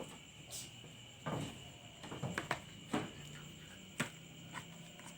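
Utensil knocking and clinking against a bowl while the egg mixture is stirred: a few irregular sharp clicks, roughly one a second.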